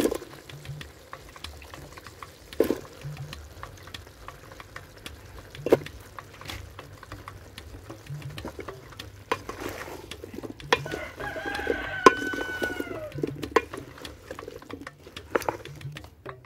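Scattered knocks and clicks as cut green banana (matoke) pieces are dropped into an aluminium cooking pot and the wooden spoon is moved in it. About eleven seconds in, a rooster crows once, a call of about two seconds that falls away at its end.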